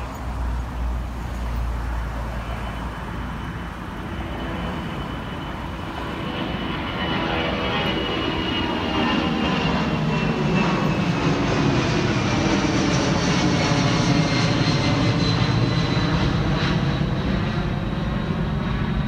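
Boeing 757-200 climbing out after takeoff. The sound of its twin turbofan engines grows steadily louder as it passes overhead, with a high whine that slowly falls in pitch.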